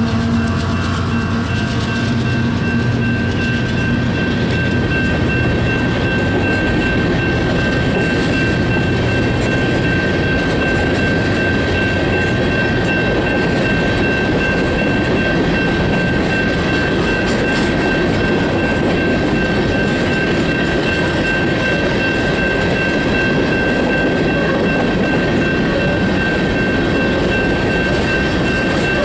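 Union Pacific GE diesel locomotives pass with their engines running, the engine note fading within the first several seconds as a long string of rock hopper cars follows, rumbling and clacking over the rails. A steady high-pitched tone sits over the train noise.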